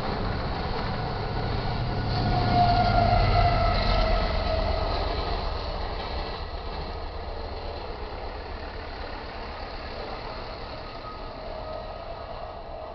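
Tail end of a double-stack container train rolling past over a grade crossing. The rumble is loudest about three seconds in, with tones that fall in pitch as the last cars go by, then it fades away as the train recedes.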